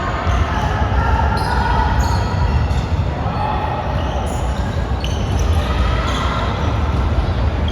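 Game sounds from an indoor basketball game: a ball bouncing on the court with players' voices, over a steady low rumble.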